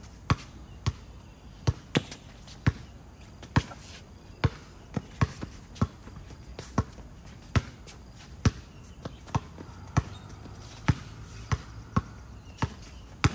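Basketball bouncing on a hard court: about twenty sharp, irregular bounces, some coming in quick runs of two or three, as in dribbling.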